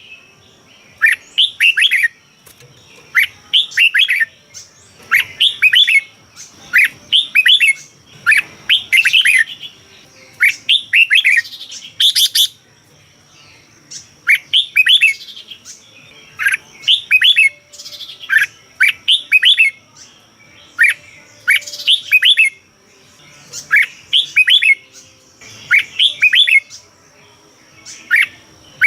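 Red-whiskered bulbul singing: short, quick phrases of rising and falling whistled notes, one every second or so with brief pauses between. A thin, steady high tone runs behind the song throughout.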